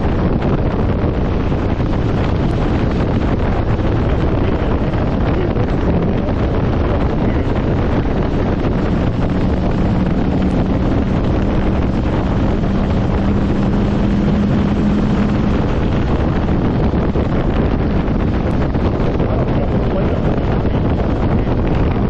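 Wind rushing over the microphone while riding an Aprilia Tuareg 660 motorcycle, loud and steady throughout. Underneath it, the bike's parallel-twin engine comes through as a steady hum holding one pitch for about six seconds around the middle.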